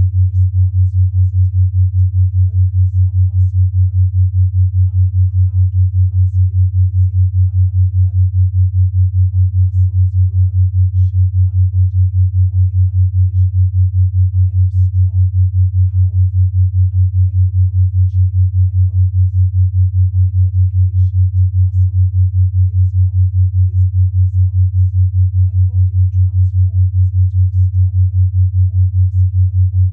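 Binaural-beat track: a loud, steady low sine tone near 100 Hz, pulsing rapidly and evenly, set for a 5 Hz beat. A very faint murmuring voice lies far beneath it, a subliminal voice track.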